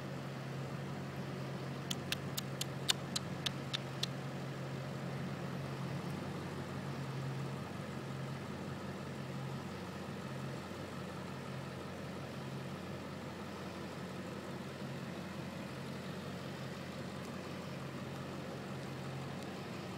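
A steady low mechanical hum. About two to four seconds in, a quick run of about eight sharp clicks.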